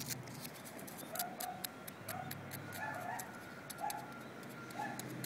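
Loose gravel clicking and crunching in quick, irregular ticks, with a few short faint calls repeating in the background.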